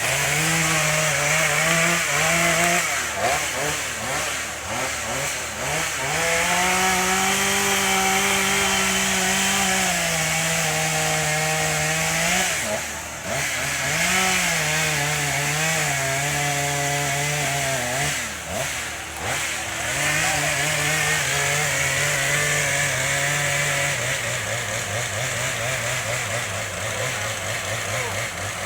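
Two-stroke chainsaw running and cutting wood, its engine pitch rising and falling as it revs and loads in the cut, then dropping lower and steadier near the end.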